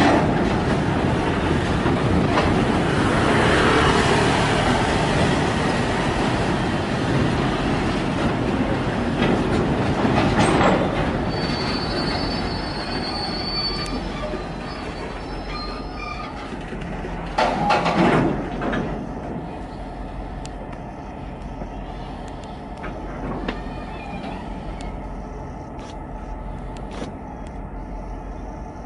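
Freight train of tank wagons rolling past at close range, steel wheels rumbling and clattering on the rails. There is a brief high wheel squeal about twelve seconds in and a loud clank around eighteen seconds. After that the rolling noise dies down to a quieter steady hum.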